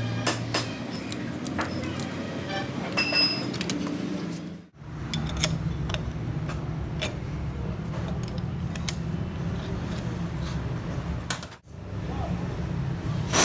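Small metal clinks and taps, tools and parts knocking together, over a steady low hum. The sound drops out abruptly twice.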